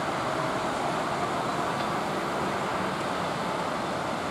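Steady rolling rumble of a freight train of flat wagons running along a far track, heard at a distance with no distinct wheel clacks.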